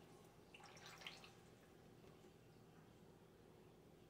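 Near silence: kitchen room tone with a few faint light clicks in the first second or so.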